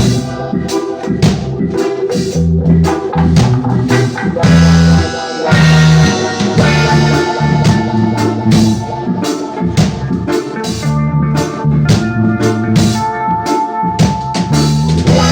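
Instrumental reggae played by a band: a drum kit keeping a steady beat under a repeating bass line, with guitar, and a long held keyboard note through the second half.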